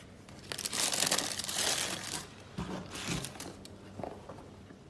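Tissue paper crinkling and rustling as it is folded back from a pair of sneakers in a cardboard shoe box. It is loudest for a second and a half near the start, then comes in a few shorter rustles.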